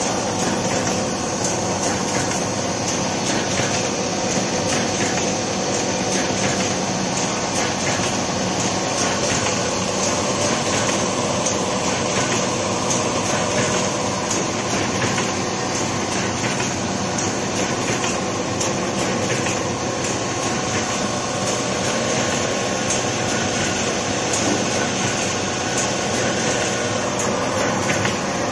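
Semi-automatic two-piece carton folder gluer running steadily: a continuous mechanical whir of its belts, rollers and drive, with a steady hum and faint ticking as corrugated cardboard sheets feed through.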